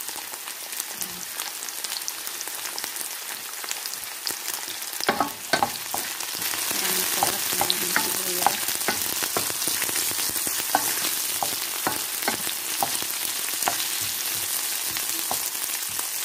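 Sliced onions sizzling in hot cooking oil in a frying pan. From about five seconds in, a spatula stirs them with clicks and scrapes against the pan, and the sizzle grows louder.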